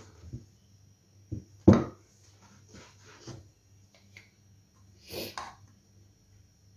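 A metal cake tray shifted and turned by hand on a tabletop: a few short knocks and scrapes, the loudest about two seconds in, over a low steady hum.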